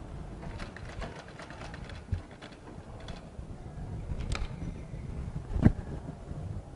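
Sewing machine stitching in short runs, with a patter of clicks and fabric being handled. Two sharp knocks stand out; the louder one comes near the end.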